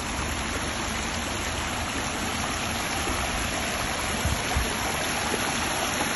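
Water running over a small rock cascade into a manmade pond: a steady rushing and splashing.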